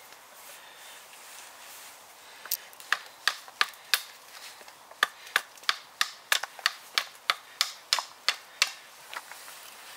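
Custom bushcraft knife striking a stick of wood in a run of sharp, short knocks, about three a second, starting a couple of seconds in with a brief pause in the middle and stopping near the end.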